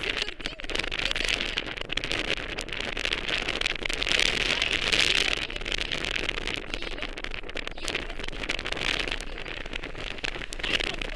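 Wind rushing and crackling over a phone's microphone carried on a moving electric scooter, with the noise swelling and easing as the ride goes on.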